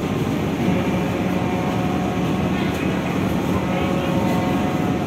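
Ferry's engines running with a steady low drone and a few constant higher tones over a rushing noise.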